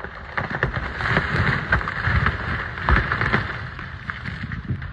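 Lightning-struck Jeffrey pine burning: a rushing noise of fire with many sharp crackles and pops, loudest in the middle.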